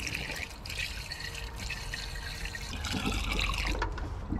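Water poured from a galvanized bucket into a tractor's radiator filler neck, a steady trickling splash as the cooling system is topped up, stopping near the end as the bucket empties.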